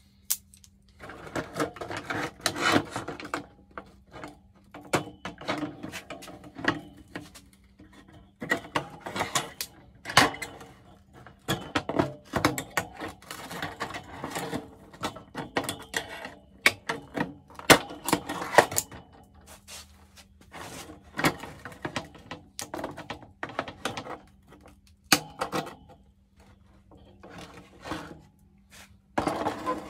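Hand-tool work on a mower seat's wooden base and upholstery: irregular clicks, knocks and short scrapes, with a steady low hum underneath.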